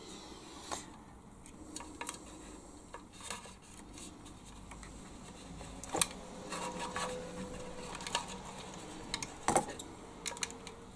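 Scattered light clicks and clinks of small parts, wires and tools being handled on a workbench, with a sharper knock about six seconds in and another about nine and a half seconds in.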